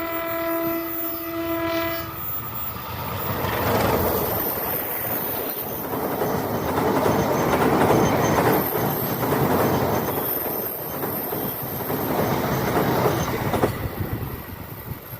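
A train horn sounds one steady note that cuts off about two seconds in. About a second later a passing train's wheels on the rails build into a loud rushing clatter that lasts around ten seconds, then drops away near the end.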